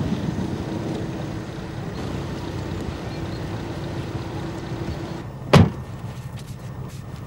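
Mazda 626 running with a steady engine hum that stops about five seconds in, followed by a car door slammed shut once.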